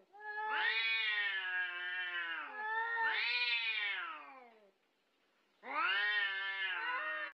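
Two domestic cats in a face-off, yowling at each other in long, wavering, drawn-out calls that overlap. After a pause of about a second, another yowl starts and is cut off abruptly at the end. These are the warning yowls of a cat standoff.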